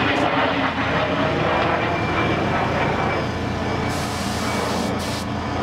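Gravity-feed paint spray gun hissing as it sprays paint onto a motorcycle fairing, the hiss starting about four seconds in with a brief break, over the steady drone of a machine running.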